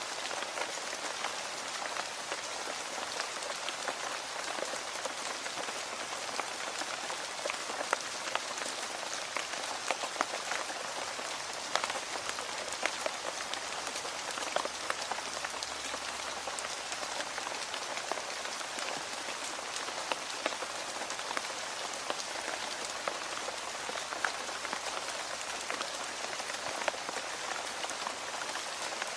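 Steady rain falling, with many small raindrop ticks striking a hard surface throughout.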